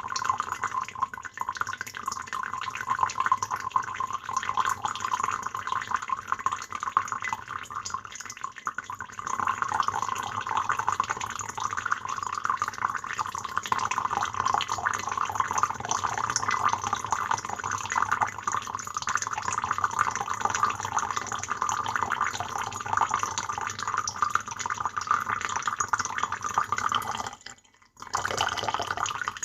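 A steady stream of water pouring into a teapot. It grows fuller about nine seconds in, breaks off briefly near the end, then stops.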